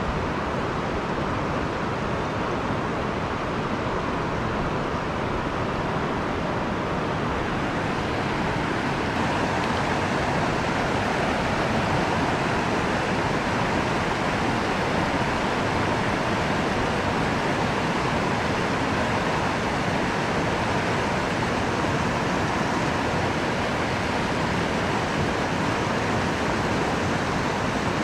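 Steady rush of river current running over rocks, a little louder after about nine seconds.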